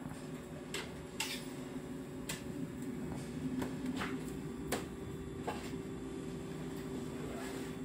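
Steady low hum of an electric train's onboard equipment, heard from the driver's cab, with about eight light clicks and knocks at irregular intervals.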